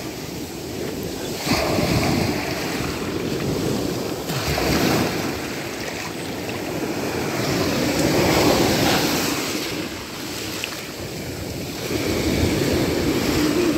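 Shallow surf washing up over the sand and draining back, swelling and fading every few seconds, with wind buffeting the microphone.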